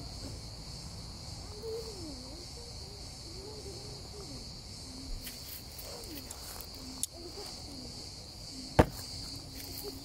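Steady high-pitched chorus of insects in a pine forest, with faint voices underneath and a few sharp clicks, the loudest about nine seconds in.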